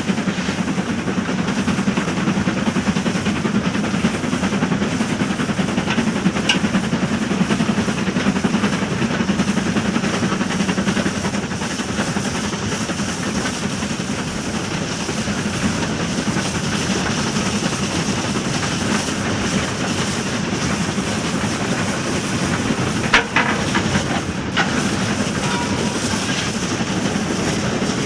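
Steam train running on the rails: a steady rumble with wheel clatter, and a sharp knock about three-quarters of the way through.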